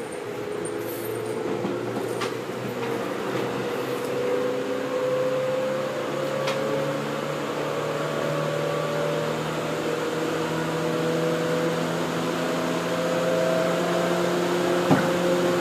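Interior noise of a commuter electric train car under way: the traction motors whine in several tones that climb slowly in pitch as the train gathers speed, over a steady running rumble. A single sharp knock near the end.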